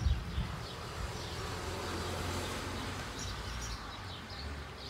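Wax crayon scratching on paper as eyelids are coloured in, over a low rumble with a bump at the start, and birds chirping in the background.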